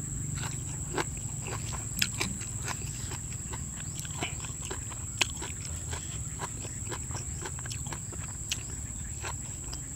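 Close-up chewing of crunchy food, grilled field frog: irregular wet crackles and clicks, with a few louder crunches. Insects keep up a steady high-pitched drone underneath.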